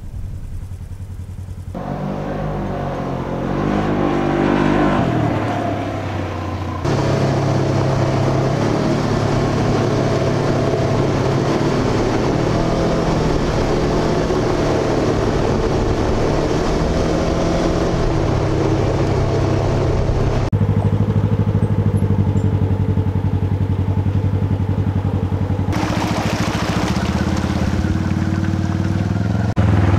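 A Polaris RZR 900 UTV's engine running under way, rising in pitch as it revs a few seconds in. The engine note changes abruptly several times as one clip cuts to the next.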